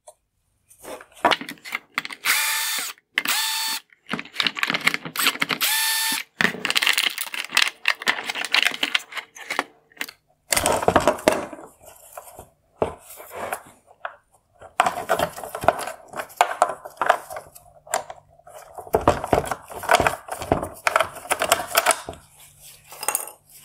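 Power drill-driver whining steadily in a few short runs in the first several seconds, backing out screws. After that come irregular plastic clicks, rattles and scrapes as the LED control unit and its wiring are worked loose from the headlight housing.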